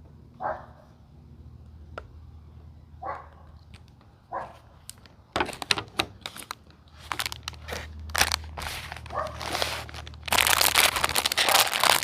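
Plastic packaging crinkling and crackling as toys are unwrapped: a few short sounds in the first seconds, scattered crackles from about five seconds in, then continuous, louder crinkling from about ten seconds in.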